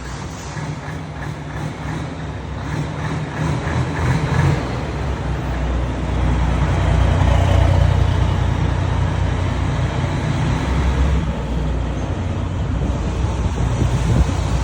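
Heavy diesel truck pulling uphill under load, its deep exhaust rumble growing louder over the first seven seconds or so and then staying loud.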